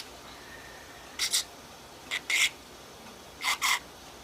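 Pet budgerigar giving short, scratchy chirps in three quick pairs, about a second apart.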